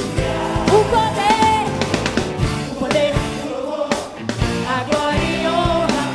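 Live performance of a gospel pop-rock song: a lead singer sings over a full band with drum kit.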